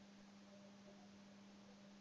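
Near silence: room tone with a faint, steady low hum and hiss.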